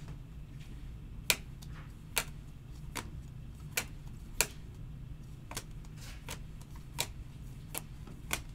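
Trading cards being handled and set down, giving sharp, irregular clicks and taps, about a dozen in all, over a steady low hum.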